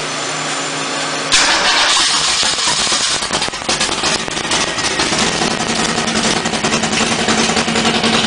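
Supercharged Studebaker 289 V8 drag engine running on its new EFI. It jumps suddenly louder with a burst of hiss a little over a second in, then eases back and settles into a steady idle.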